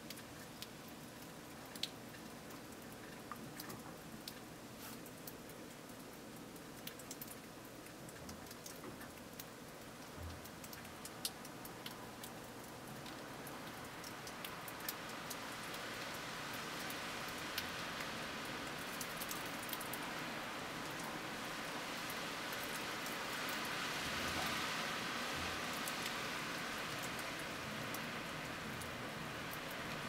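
Blizzard wind hissing through snow-covered trees, with scattered light ticks. About halfway through the wind builds into a stronger gust, loudest a few seconds before the end.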